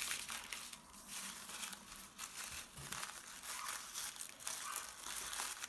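Tissue paper crinkling and rustling as the pleated, folded layers of a paper flower are spread open by hand, in a run of short, uneven crackles.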